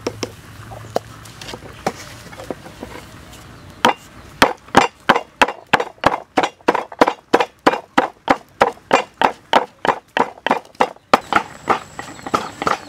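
Wooden pestle pounding sliced lemongrass with salt and sugar in a wooden mortar: a steady run of sharp thuds, about three a second, that starts a few seconds in and stops near the end.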